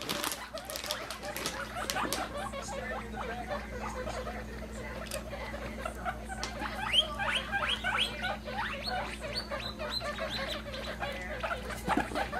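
Baby guinea pigs squeaking: a long run of short rising squeaks, thickest in the middle, after some scattered clicks and taps in the first couple of seconds.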